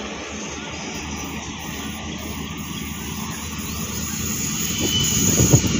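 Approaching diesel locomotive, its engine drone growing steadily louder as it nears, with low knocks of wheels and rail joining in near the end.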